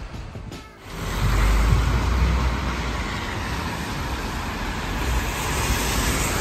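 Road traffic passing on a wet road: a steady hiss of tyres on wet tarmac over a low rumble, starting about a second in.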